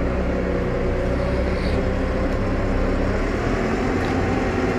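New Holland T5 120 tractor's diesel engine running steadily under load, pulling a three-furrow plough that has just been lowered into work.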